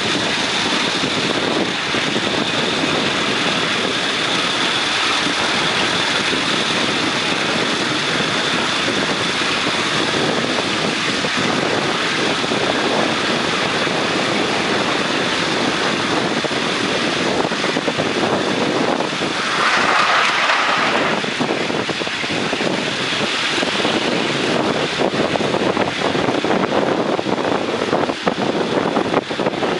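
Running noise of a ride-on miniature steam train on a raised track: a steady rumble and clatter of the riding car's wheels on the rails, with wind on the microphone. About twenty seconds in comes a louder, higher-pitched sound lasting about a second and a half.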